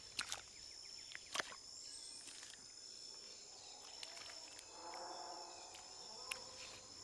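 Green iguana biting and chewing leaves: a few crisp snaps over a steady high-pitched insect drone of tropical forest.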